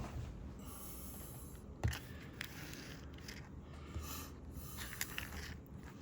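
Small handling clicks and knocks from a multimeter and its test leads being picked up and set up on a workbench, with one sharper knock about two seconds in.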